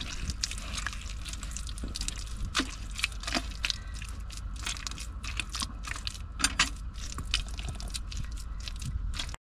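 Wet clay mixed with straw being pressed and smeared by hand onto the inside wall of a metal barrel stove: soft squelches with scattered small clicks and crackles over a steady low rumble.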